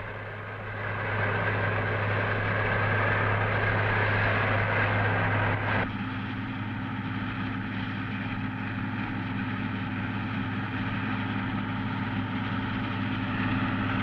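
Massey Ferguson 500 combine harvester running with a steady low drone. For about the first six seconds a hissing rush from grain pouring into the saddle tank rides over it, then cuts off suddenly.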